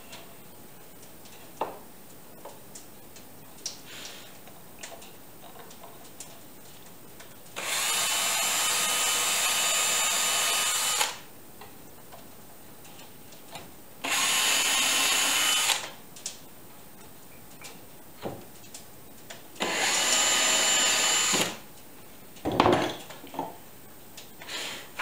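Power drill boring starter holes into an oak frame corner, run three times: once for about three and a half seconds, then two shorter runs. A short thump follows near the end, among light handling clicks.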